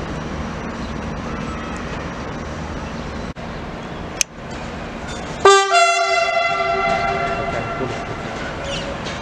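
Train horn sounding one loud blast of several notes at once about halfway through, fading away over a couple of seconds. Before it, a railway engine idles with a steady low hum.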